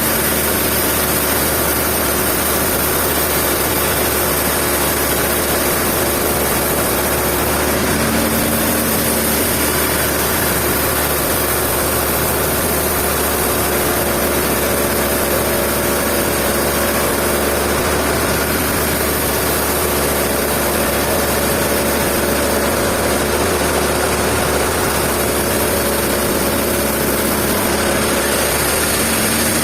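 Sawmill machinery running steadily: a dense, even mechanical noise with a few held tones that shift in pitch now and then.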